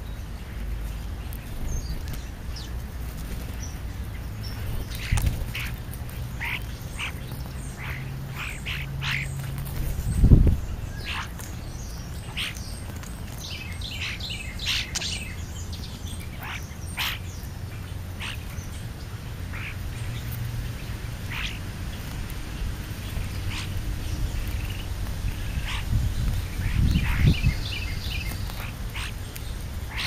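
Songbirds giving many short chirps and calls, busiest through the middle. A dull thump about ten seconds in is the loudest sound, and a few more low knocks come near the end.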